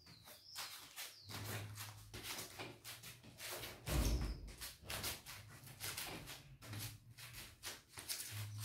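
Hands and sneakers scuffing, rustling and knocking on a woven straw mat as a person crab-walks across it, with a heavier thud about four seconds in.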